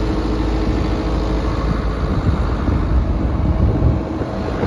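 The John Deere 135C excavator's Isuzu diesel engine running steadily at idle. It is heard close up from on top of the machine, beside the engine hood.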